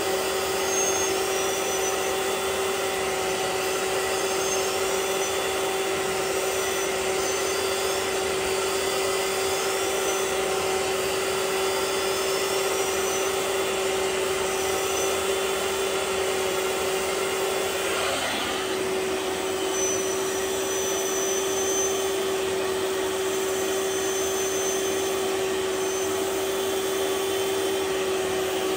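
Vax OnePWR cordless portable carpet cleaner running steadily with its suction on, extracting spilled milk from thick-pile carpet. A faint high whistle rises in repeated sweeps every couple of seconds and later settles into a steady tone. There is one brief wobble in the motor sound about 18 seconds in.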